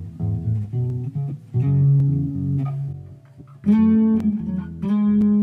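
Harley Benton PB Shorty short-scale electric bass with a passive precision pickup, played through a Zoom G1Four multi-effects unit: a plucked bass line of low single notes, some overlapping, with two louder held notes in the second half.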